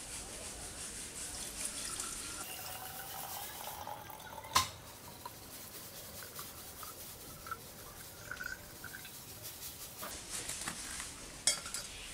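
Coconut water poured from a steel vessel through a strainer into a glass jar, a trickling pour whose pitch rises as the jar fills. A single sharp knock comes about four and a half seconds in, followed by dripping, and the pouring picks up again near the end.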